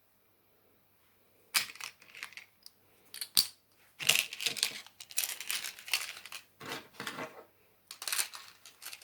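Plastic bags crinkling and rustling as they are handled, in irregular bursts, with one sharp click about three and a half seconds in.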